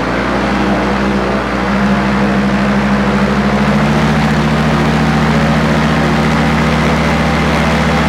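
Miniplane Top 80 paramotor's two-stroke engine, geared down to its propeller, being run up to full throttle: the engine note and level climb over the first few seconds, then hold steady at full power.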